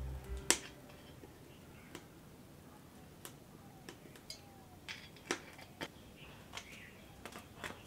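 Sparse, sharp clicks and light taps at irregular intervals, the sounds of kitchen work with cookware and utensils.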